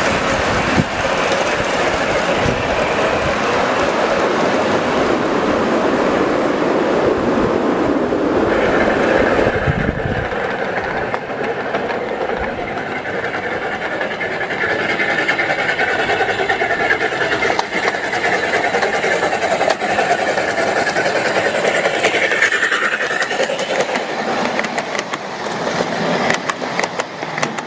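A 1/8-scale ride-on miniature train rolling along its track: a steady rumble of steel wheels on the rails, with a run of clicks near the end as the cars pass.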